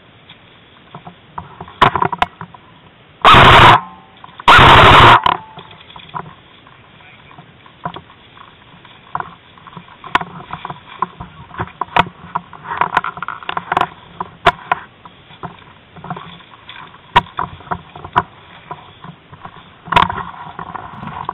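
Footsteps and rustling in dry grass with scattered short clicks and knocks, busiest in the second half, and two very loud distorted bursts about three and four and a half seconds in.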